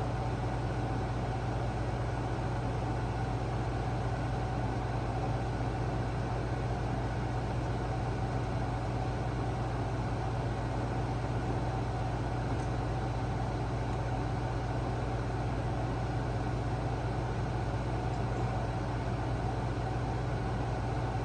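Air conditioner running with a steady, unchanging hum.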